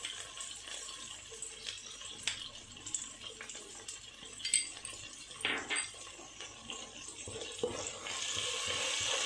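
Sauces sizzling in hot oil in a nonstick wok, with small clicks and a few scrapes of a wooden spatula against the pan. The sizzle grows louder and steadier near the end as the spatula starts stirring.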